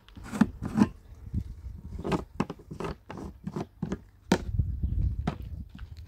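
A series of irregular scrapes and knocks as a plastic water jerrycan is handled and settled into a woven donkey saddlebag.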